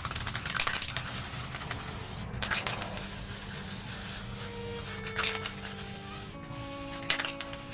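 Aerosol spray-paint can hissing as it sprays paint onto paper: a continuous hiss with four short, louder blasts spread through it.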